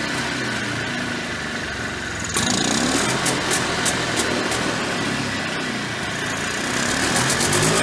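Polaris Trail Boss 250's single-cylinder two-stroke engine running. About two and a half seconds in, the revs jump sharply, then sink back slowly, taking a while to idle down. The owner takes this slow return to idle for an air leak past bad crankcase seals.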